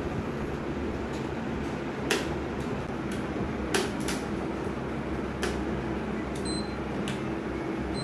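Optical-fibre fusion splicer being handled: a handful of sharp plastic clicks as its fibre clamps and lid are opened and closed. About three-quarters of the way through it gives one short, high electronic beep. A steady background hum runs underneath.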